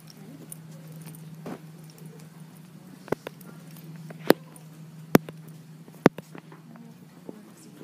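Classroom background noise during quiet seatwork: a steady low hum with four sharp, short knocks or clicks spread through the middle.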